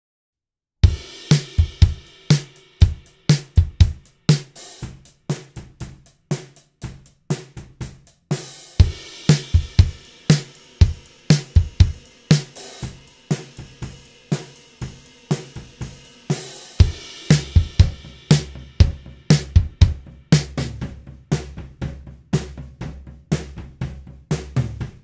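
Drum kit playing a steady groove of kick, snare, hi-hat and cymbals, heard through a pair of AKG C214 condenser overhead mics in the full mix. It starts about a second in, breaks briefly about eight seconds in, and the kick drum grows heavier in the second half.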